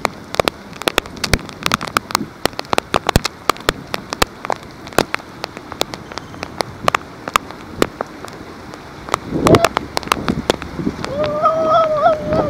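Heavy rain falling, with many sharp close raindrop hits throughout. About nine seconds in there is a brief louder rush, and near the end a high wavering tone is held for a couple of seconds.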